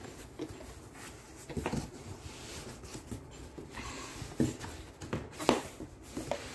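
Cardboard carton and the boxed goods inside it being handled: cardboard rustling with a few light knocks, the sharpest about four and a half and five and a half seconds in.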